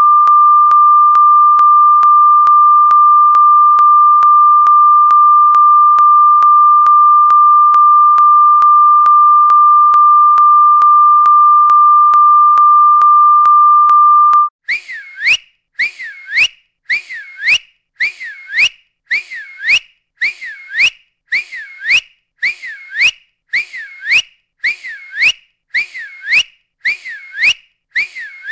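A steady, high-pitched electronic tone held for about fourteen seconds. It then gives way to a short whistle-like chirp that dips and rises in pitch, repeated about once a second.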